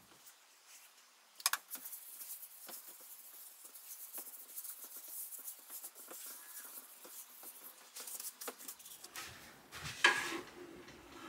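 A spray bottle squirts methylated spirit once about a second and a half in, then a gloved hand and rag wipe it over a varnished teak top to dissolve the old finish: a soft, hissy rubbing with many small scuffs and ticks. One sharp knock comes near the end.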